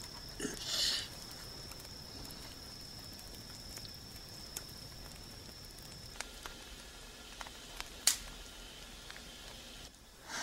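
Small wood fire crackling in an open hearth: sparse small pops and snaps, with one sharper pop about eight seconds in. A brief hiss comes just under a second in, and a faint steady high whine stops about six seconds in.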